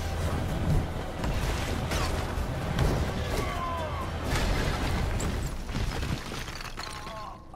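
Film fight-scene soundtrack: repeated heavy impacts, booms and crashes over a low, rumbling dramatic score, fading down near the end.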